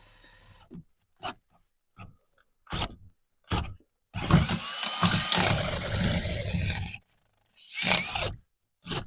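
Milwaukee cordless drill boring a hole through a steel plate. It runs in several short trigger bursts, then a continuous run of about three seconds, then another burst near the end.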